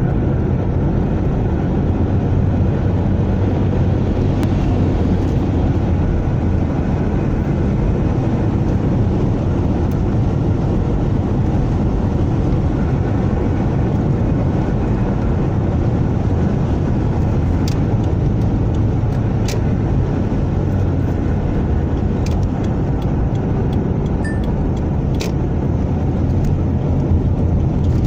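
Second-generation Toyota Prius driving, with a steady low road rumble and a few short, sharp knocks scattered through it. The knocking is the sign of a worn front strut top mount, which the owner had first suspected was the steering rack.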